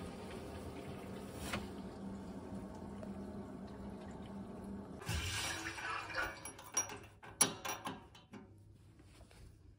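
Water rushing in central-heating pipework over a steady hum. About five seconds in it changes to a louder hiss of water, and several sharp metallic clicks come as a spanner works a chrome radiator lockshield valve that has just had new spindle O-rings fitted.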